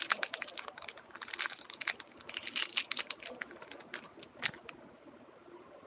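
Close handling noise: rapid irregular clicks and crinkling as something is opened near the microphone, thinning out after about four and a half seconds.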